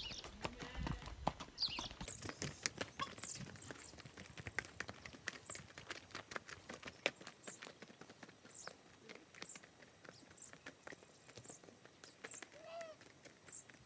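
Hoofbeats of a saddled horse walking away along a dirt track, a run of soft clip-clops that grows fainter.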